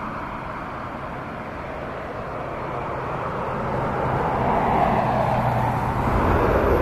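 Jet airliner engines running at low power, a steady rushing noise with a low hum underneath, growing louder from about halfway through.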